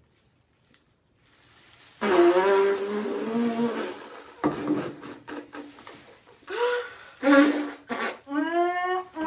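Near silence for about two seconds, then a young woman's drawn-out wails and groans of disgust as raw eggs are dumped over her head.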